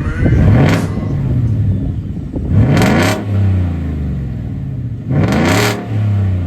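Ford F-150's 5.0 V8 idling through a new custom cat-back exhaust that ends in a turndown with no tip, blipped three times: each rev rises sharply and falls back to a low idle.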